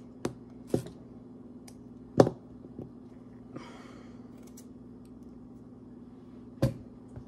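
Potato being hand-peeled with a vegetable peeler: faint scraping with a few sharp clicks, the loudest about two seconds in, over a steady low hum.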